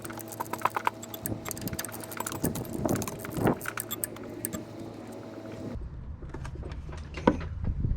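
Ratchet wrench clicking rapidly with metallic clinks as the alternator's adjusting bolt is backed out. Nearly six seconds in, the clicking stops abruptly and a low hum takes over, with a few scattered clicks.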